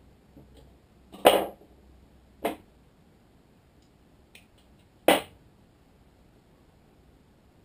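A man coughing three times: a longer cough about a second in, a shorter one a second later, and a third sharp one about five seconds in.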